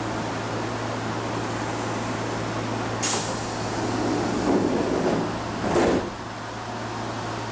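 Kintetsu limited express train's sliding doors closing over the steady hum of the stopped train: a sudden air hiss about three seconds in, the doors running shut, and a sharp thud as they meet just before six seconds.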